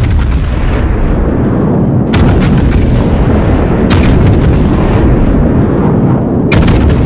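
Heavy artillery firing: a continuous loud rumble with sharp blasts about two, four and six and a half seconds in.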